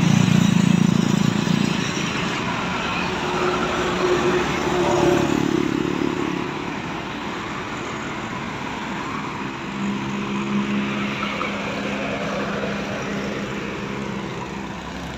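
A large diesel coach idling while stopped at the roadside, with cars and motorcycles driving past. The traffic swells loudest right at the start and again about five seconds in.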